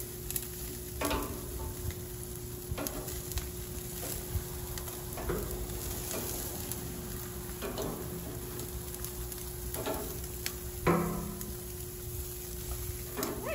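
Chicken drumsticks sizzling on a gas grill while metal tongs turn them. The tongs give short clinks and scrapes against the grates every second or two over a steady sizzle.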